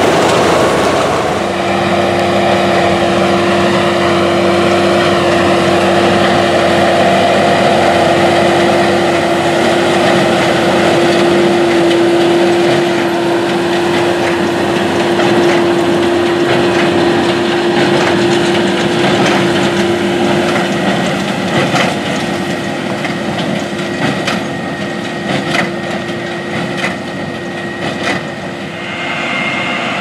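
Massey Ferguson 2270XD large square baler and its tractor running in the field, a steady drone with a whine. In the last third it gives a run of sharp knocks and clatter.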